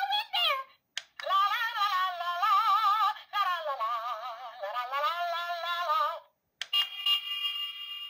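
Mickey and Minnie's Runaway Railway toy car playing a tinny electronic jingle through its small speaker: a warbling, sung-style melody, then a held chord near the end.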